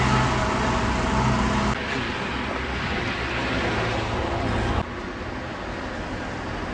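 Street traffic noise with a steady low engine hum from a motor vehicle running. The sound drops abruptly twice, about two and five seconds in, getting quieter each time.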